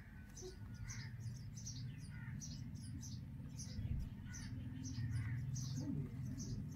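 Indian robin nestlings giving thin, high begging calls, a short downward-sweeping note about twice a second, as they gape for food. A steady low hum runs underneath.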